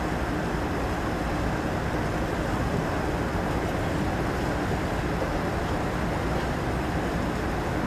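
Steady low rumble and wash of noise aboard a moving cruise ship, with a faint steady hum underneath.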